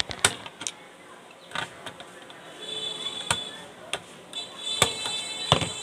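Pliers tightening the nut of a volume control on a sheet-steel charger front panel: a run of irregular sharp metallic clicks and taps as the jaws grip and slip on the nut.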